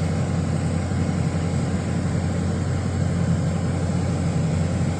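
Steady roar of a swollen, storm-fed river's rushing water, even and unbroken, with most of its weight low down.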